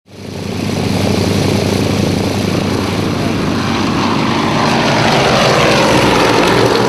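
Propeller aircraft running at high power, a dense, steady engine and propeller noise that fades in over the first half-second.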